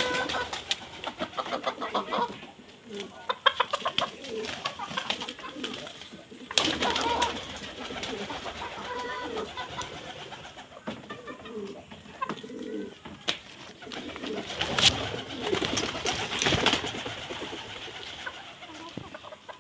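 Foraging chickens making low, repeated clucking calls, with scattered sharp clicks and rustles among them.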